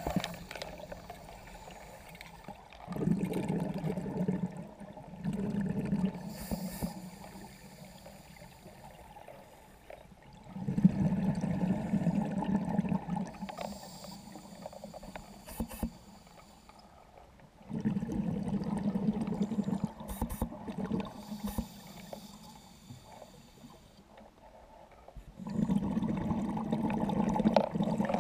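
Scuba diver breathing through a regulator underwater: every several seconds an exhalation sends out a two-to-three-second burst of bubbling, with a fainter hiss of inhalation in the quieter stretches between.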